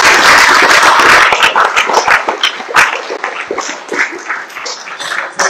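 Audience applauding, dense at first and thinning out into scattered separate claps over the last few seconds.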